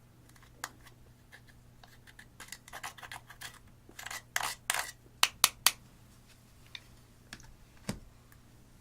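Scraping and clicking of hard plastic and pressed eyeshadow, as a full pan of eyeshadow is cut out and worked loose, with three sharp clicks in quick succession about halfway through and a dull knock near the end.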